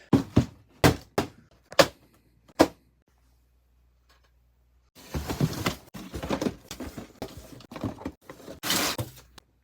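Boxed plastic model kits being handled: a quick series of sharp knocks and taps, then after a short pause a longer stretch of rustling and scraping.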